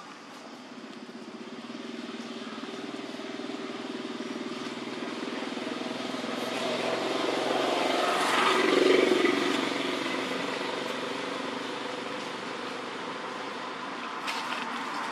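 A motor vehicle's engine passing by, growing steadily louder to a peak about nine seconds in, then fading.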